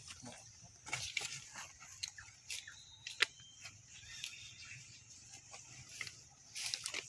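Short, high squeaks and chirps at irregular moments, likely from a newborn long-tailed macaque clinging to its mother, over a steady high hiss.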